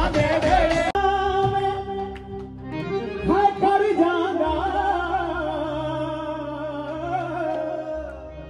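Live Punjabi song: a singer holding long, wavering notes over steady instrumental accompaniment.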